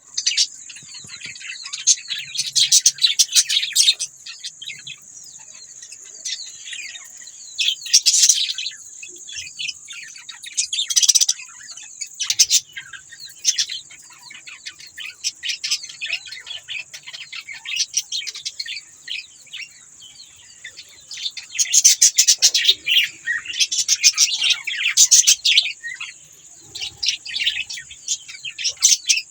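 A flock of budgerigars chirping and warbling continuously, with louder bursts of chatter now and then.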